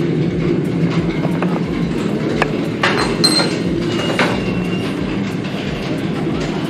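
Two-post car lift lowering a car: a steady mechanical hum with scattered sharp clicks and clanks.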